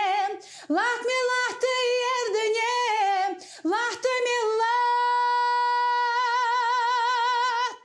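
A woman singing a song unaccompanied, in short phrases with breaths between them. About four and a half seconds in she holds one long note, its vibrato widening toward the end.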